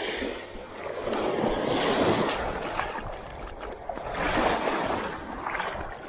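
Small waves washing in the shallows, swelling twice, about a second in and again near four seconds, with wind on the microphone and a few faint clicks.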